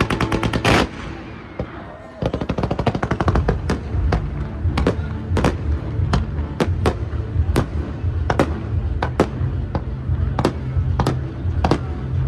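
Fireworks display: a rapid string of crackling bangs ends in a loud burst about a second in, then after a short lull irregular sharp bangs resume over a low rumble.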